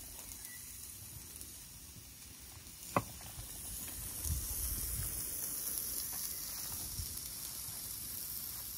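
Salo (pork fat) sizzling in a frying pan as the fat renders; the sizzle grows louder about four seconds in. A single sharp click about three seconds in.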